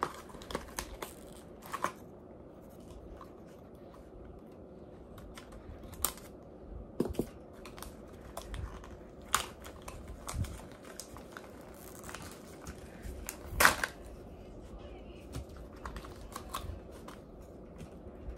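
Toy packaging being handled and opened by hand: scattered rustles, crinkles and sharp clicks, with one louder crackle about two-thirds of the way through.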